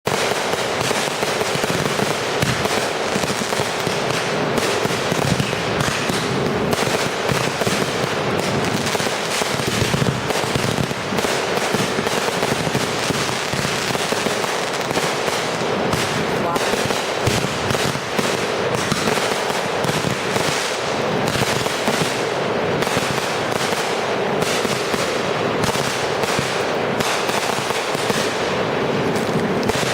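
Fireworks finale: a dense, unbroken barrage of bangs and crackling, shots following one another too fast to count, at a steady level throughout.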